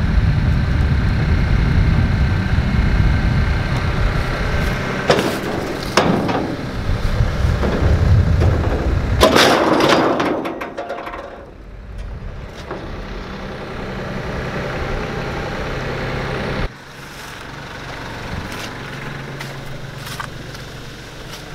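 A vehicle engine running steadily as the old pickup is pulled up onto the trailer, with sharp metal knocks about five and six seconds in and a louder clattering rush around nine to ten seconds. After that the engine noise falls to a quieter, low hum.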